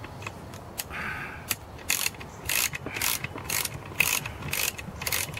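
Ratchet wrench clicking in short strokes, about two a second, starting about two seconds in, as the nut clamping the chainsaw's guide bar and side cover is run down.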